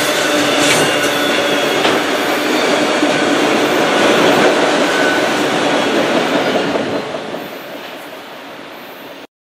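Autorack freight cars rolling past close by: a steady rumble and rattle of wheels and car bodies, with a few sharp clicks. The sound dies away over the last two seconds as the end of the train passes, then cuts off suddenly.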